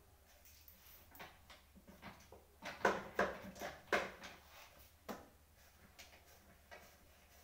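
Office chairs being handled and shifted: scattered knocks, clicks and rattles of chair frames and parts, a cluster of sharper knocks about three to four seconds in.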